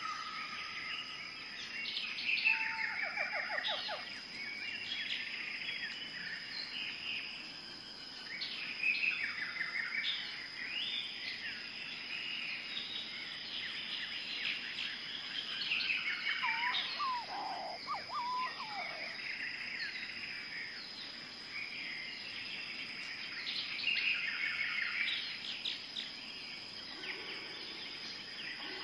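Songbirds singing in short, varied chirping phrases that come every few seconds, with a lower falling phrase at about the middle, over a steady high-pitched whine.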